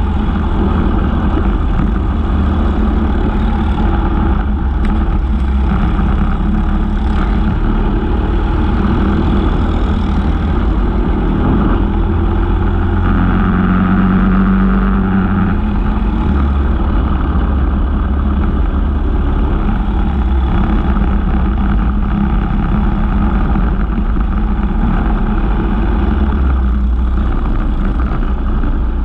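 Briggs & Stratton LO206 single-cylinder four-stroke kart engines running at race speed, heard close up from a kart-mounted camera with other karts running alongside and just ahead. The engine noise is loud and continuous.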